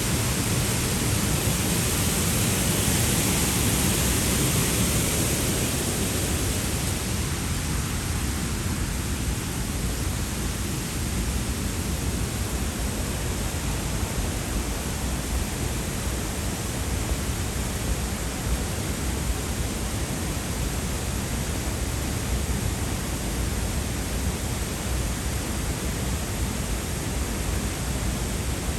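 Dray Nur waterfall's steady roar of falling water, an even rushing noise throughout, slightly brighter and louder in the first few seconds.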